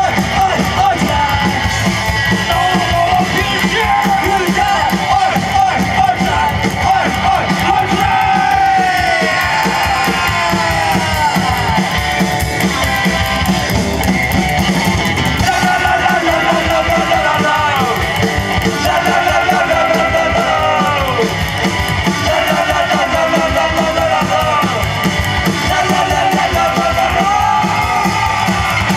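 Rockabilly band playing live: electric guitar with bending lead notes over a steady, driving beat, with some singing or shouting.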